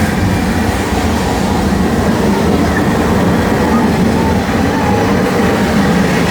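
Special effects of the Universal Studios Earthquake attraction: a loud, continuous rumble of the staged quake in its mock subway station, heard like a train running through.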